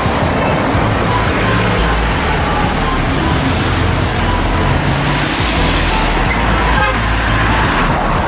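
Steady road traffic noise mixed with background music that has a stepping bass line.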